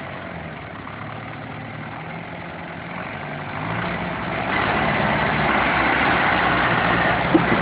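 Farm tractor diesel engines running, growing louder about halfway through as they take on more throttle.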